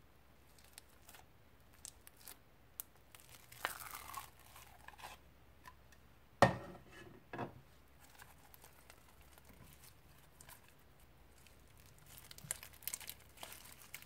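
Hands pressing, poking and stretching foam-bead slime, which gives scattered sticky clicks, pops and crackles. Two louder snaps come a second apart just past the middle. Near the end there is a dense burst of crackling as crusty, partly dried slime is kneaded and pulled apart.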